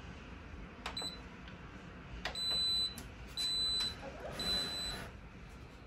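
Instant Pot control panel beeping: a click and a short beep about a second in, then three longer beeps of the same high pitch about a second apart, as the high-pressure cook program starts.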